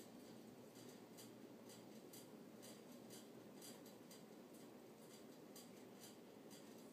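Near silence: room tone with faint ticks about twice a second.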